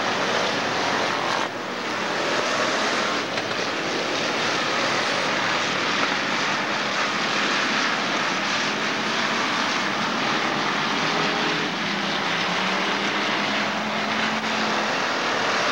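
A field of dirt-track stock cars racing, their engines running together as one steady, dense drone, with single engines rising and falling in pitch as cars pass, and a brief dip about a second and a half in.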